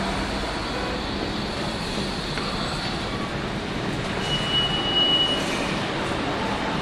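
Steady rumble of subway train noise in a station entrance. A single high, steady tone sounds for about a second past the middle.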